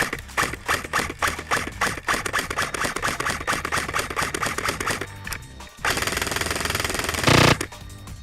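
Background music with a steady bass, mixed over rapid clicking, then a denser, louder rattle near the end that fits an airsoft electric gun firing on full auto.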